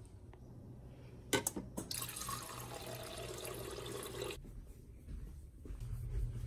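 Refrigerator door water dispenser running into a plastic tumbler for about two and a half seconds, then cutting off suddenly. Two clicks come just before the water starts.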